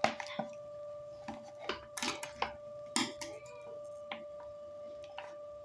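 Packaging of a small gift box being handled and opened: a sharp click, then a handful of brief crinkling and rustling noises spread over a few seconds.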